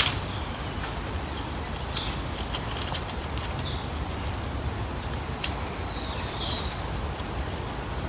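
Forest ambience: a steady low rumble with a few short, high bird chirps and a few sharp clicks, one right at the start and another about five and a half seconds in.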